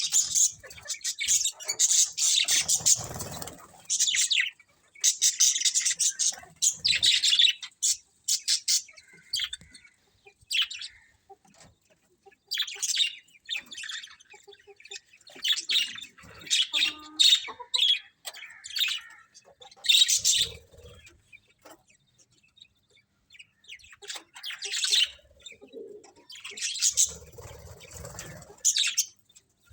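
A colony of budgerigars chirping in irregular bursts of quick, high chirps with short pauses between them, and a few low rustles, most likely from the birds' wings, scattered through.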